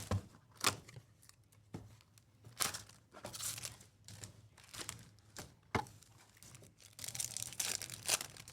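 Trading card box and pack wrappers being ripped open and crinkled by hand, as a string of short sharp tears with a longer run of crinkling near the end.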